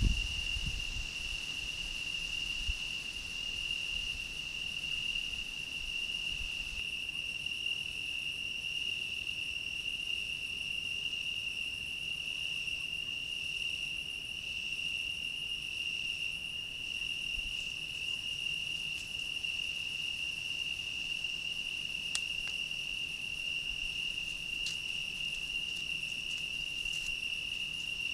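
Crickets trilling in one steady, unbroken high-pitched note, with a couple of faint clicks in the second half.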